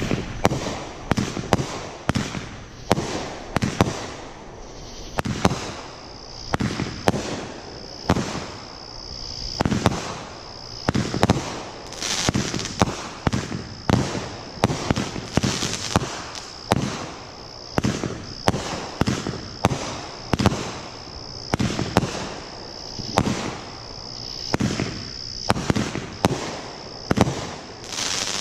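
Multi-shot consumer fireworks cake firing shot after shot: sharp bangs of launches and bursts, irregular and about two a second. Crickets chirp steadily behind it.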